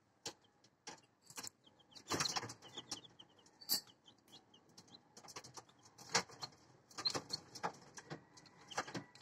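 Newly hatched chicks cheeping faintly in short high peeps, mixed with many scattered sharp clicks and taps, with a busier cluster about two seconds in.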